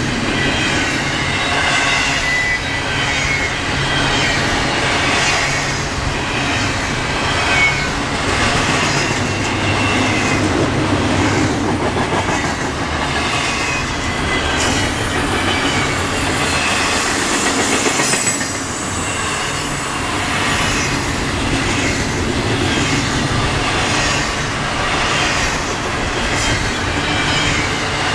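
Freight train cars rolling past, their wheels clattering rhythmically over the rails, with high-pitched wheel squeal coming and going.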